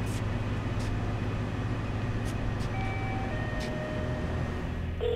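Steady low rumble of outdoor background noise, with a few faint clicks and a couple of short electronic tones about three seconds in.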